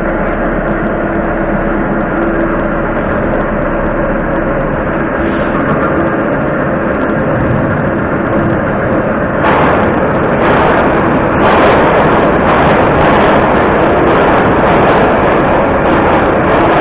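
Steady hum of a stationary metro car with a faint constant tone, then, about ten seconds in, a louder rumble and rush of another metro train pulling in on the neighbouring track, which fills the rest.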